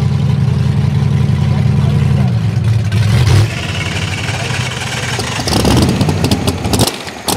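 Drag-race car engines running at low speed: a deep, steady engine note that falls away about three seconds in, then another race car's engine as it rolls past, louder near the end.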